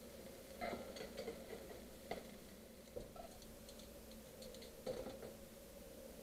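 A few light clicks and taps of kitchen utensils, scattered over several seconds, over a faint steady hum.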